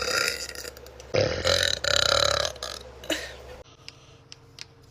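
A woman burping deeply, low-pitched and drawn out: one long burp trails off just under a second in, and a second loud burp follows, lasting over a second, with a short one after it.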